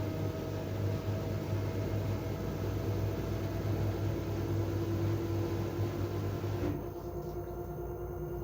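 LG TurboWash washing machine running its TubClean cycle: a steady hum with a continuous whining tone over it. About two-thirds of the way through, the hiss drops away, leaving the hum and the tone.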